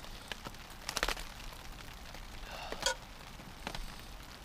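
A metal spoon clinking and scraping in a cast-iron Dutch oven of stew: a few sharp taps, one with a brief ring near three seconds in, over a faint steady hiss.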